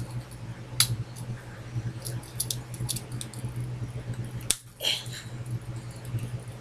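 Hair clips and hair being handled while cat-ear clips are fitted into curly hair: scattered light clicks and rustles, the sharpest click about four and a half seconds in, over a steady low hum.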